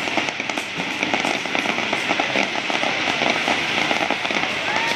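Fireworks crackling: a dense, continuous patter of small sharp pops.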